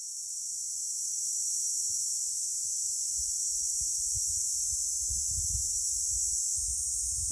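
Steady, high-pitched chorus of insects buzzing in the mangroves, fading in over the first second or so. Wind bumps on the microphone from about three seconds in.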